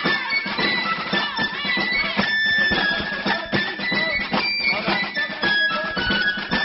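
Lively music with a high, piping melody over a steady beat, with voices whooping and singing along over it.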